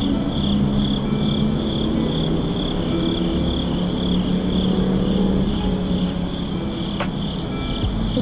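Crickets chirping in a steady pulsing rhythm, about three chirps a second, over a low steady hum.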